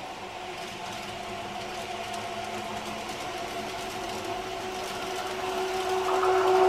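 N gauge model EF81 locomotive running on the track: a steady small-motor whir with a held hum and the light hiss of wheels on rail. It grows louder near the end as the train comes closer.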